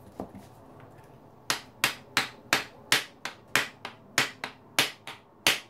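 Steel lathe spindle being tapped out of a watchmaker's lathe headstock with a wooden block: about a dozen sharp, quick, evenly spaced knocks, roughly three a second, starting about a second and a half in. The blows are driving the oil-gummed spindle out of its cone bearings.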